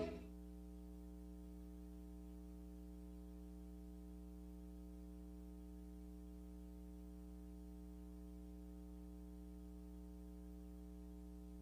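Faint, steady electrical mains hum with its overtones, unchanging; otherwise near silence.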